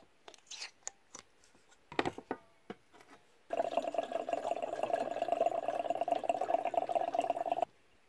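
Scattered clicks and knocks of handling, then liquid pouring in a steady stream for about four seconds, stopping abruptly.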